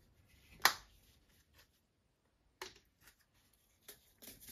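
A plastic spice shaker being shaken over a pan of chicken: one sharp click, two fainter clicks later, then a soft, scratchy rattle of seasoning near the end.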